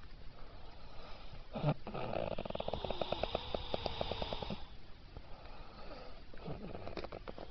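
Sleeping man snoring: a sharp intake about one and a half seconds in, then one long rattling snore of nearly three seconds, followed by a softer breath near the end.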